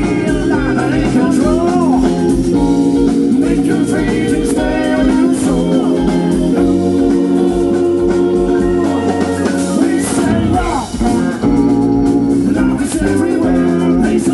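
Live band playing through a PA: a male singer over electric guitars, an organ-sounding keyboard and drums. The music dips briefly about eleven seconds in, then carries on.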